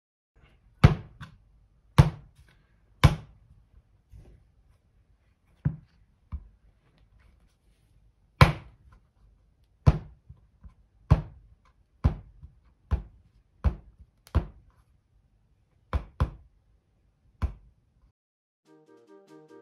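Soft pottery clay thumped down hard against a plywood board, about fifteen heavy thuds at uneven intervals roughly a second apart, stopping shortly before the end.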